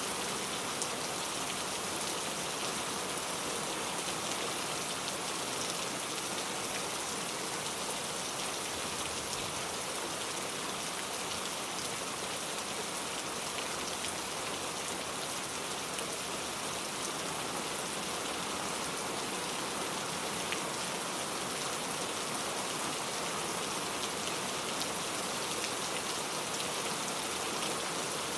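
Steady rain falling, an even hiss of many raindrops on surfaces with small scattered drop ticks.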